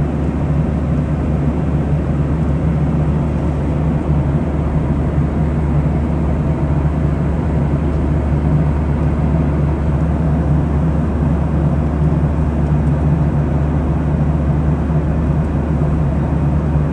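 Steady low drone of a Boeing 737 in flight, heard from inside the cabin: engine and airflow noise with no changes in pitch or level.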